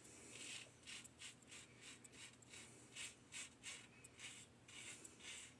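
Faint scraping strokes of an 1895 Star lather catcher safety razor with a Gem single-edge blade cutting whiskers through lather, about three short strokes a second.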